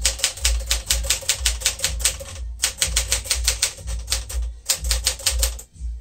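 1959 Smith-Corona Sterling manual portable typewriter being typed on at a quick pace: rapid runs of key strikes, about eight to ten a second, with a few brief pauses between words.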